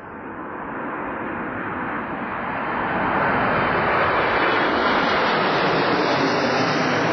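Jet engine noise from a formation of Panavia Tornado jets flying over, with their RB199 turbofans. The noise grows louder over the first three seconds and then stays steady at its loudest.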